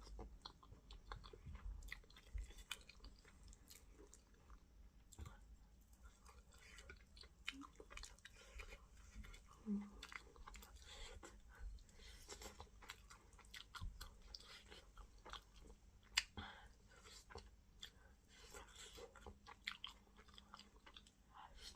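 Quiet, close-up chewing and wet lip-smacking of a person eating okra fish stew with fufu: a steady run of soft mouth clicks, with one sharper smack about 16 seconds in.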